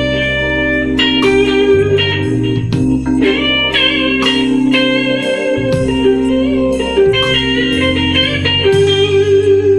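Electric guitar playing slow blues lead lines in a clean amp tone with small room reverb and digital delay, over a slow-tempo backing track with sustained bass notes.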